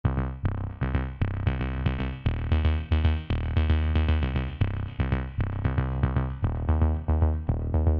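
Electronic dance music: a repeating synthesizer pattern of about three or four notes a second over a sustained deep bassline.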